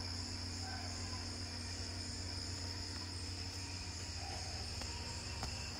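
Steady background room noise: a constant high-pitched whine over a low hum, with no clear event.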